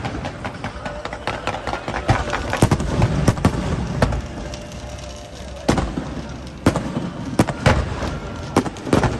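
Aerial fireworks going off: a string of sharp bangs at irregular intervals, often several within a second, with a brief lull about halfway through.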